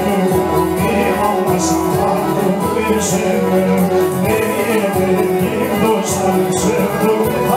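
A man singing into a microphone over loud amplified music, with recurring percussion hits.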